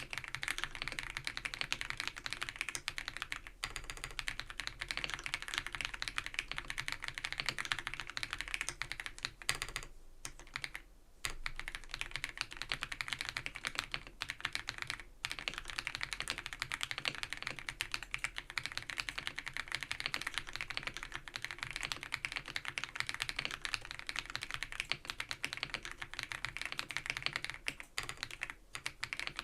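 Fast, continuous typing on an ABKO AK100 mechanical keyboard fitted with Baby White switches: a dense run of high-pitched keystrokes with a slightly scratchy edge between strokes, and two brief pauses, one about ten seconds in and one near the end.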